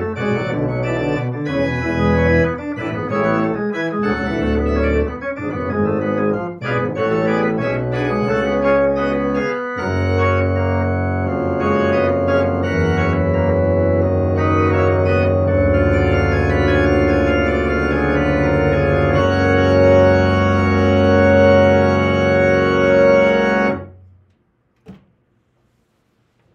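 Electronic organ playing a Baroque-style passage of quick-moving notes, then full sustained chords held for about fourteen seconds before stopping abruptly about 24 seconds in. A single faint knock follows.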